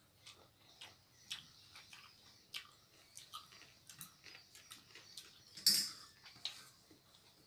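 Eating sounds up close: scattered wet clicks and smacks of chewing and of fingers mixing rice with thin chicken curry, with one louder slurp about six seconds in as fingers are sucked at the mouth.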